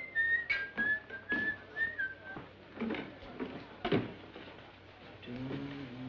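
A person whistling a short tune of several clear held notes that ends about two and a half seconds in, with a few sharp knocks around it. Low held notes come in near the end.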